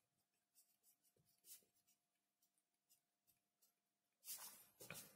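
Faint pen scratching on paper in a few short strokes, the clearest ones near the end.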